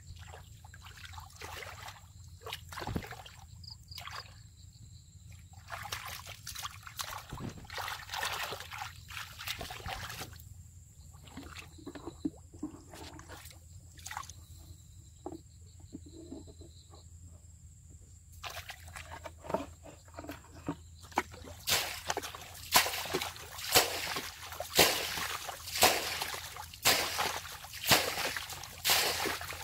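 Water sloshing and splashing as bare legs and hands move through a shallow muddy pool, in scattered irregular strokes. About two-thirds of the way in, this turns into a regular run of louder splashes, about one a second, as water is scooped with a plastic bucket.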